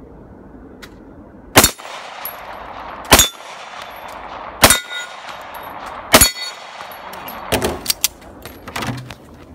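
Four semi-automatic pistol shots, evenly spaced about a second and a half apart, each followed by the ring of a steel target being hit. Near the end come several quieter knocks.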